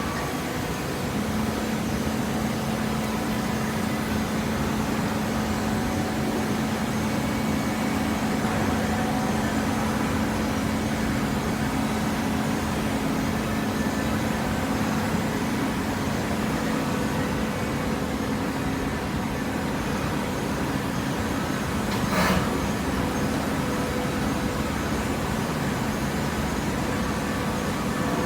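Machinery running steadily with a constant hum, and one short, sharp noise about 22 seconds in.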